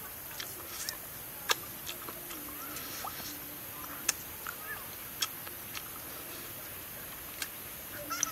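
Close-up eating sounds of cooked snake on the bone: chewing with sharp, scattered clicks and crunches as the meat is bitten and pulled off the ribs, over a steady high hiss.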